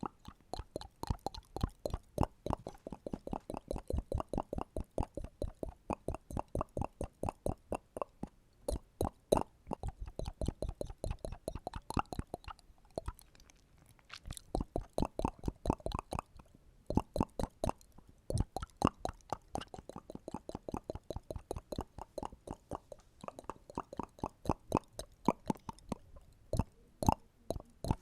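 ASMR mouth sounds: a rapid run of close-miked wet clicks and pops from the lips and tongue, several a second, broken by a few short pauses.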